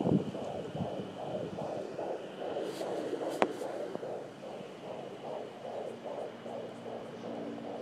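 Fetal heartbeat of a 20-week baby through a fetal Doppler monitor: rapid rhythmic whooshing pulses at about two and a half beats a second. There is a thump right at the start and a single sharp click about three and a half seconds in.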